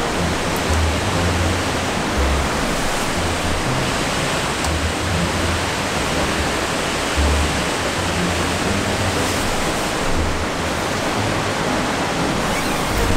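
Steady rushing of a mountain valley stream and waterfall, an even hiss of water with low rumbles underneath.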